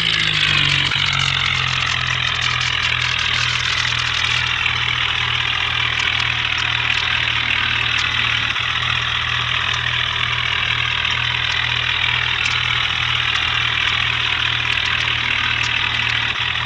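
A bulldozer's engine idling at a steady, unchanging speed.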